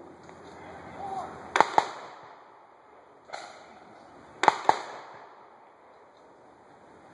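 Gunshots fired with blanks: two quick pairs of shots about three seconds apart, with a fainter single shot between them, each trailing a brief echo. They are the sound of a simulated firefight with a patrol under fire.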